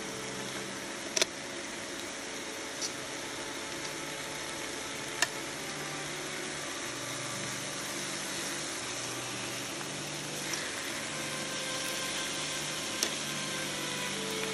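Marinated slices of beef and pork sizzling on a hot ridged grill pan: a steady hiss with a few sharp pops and spits.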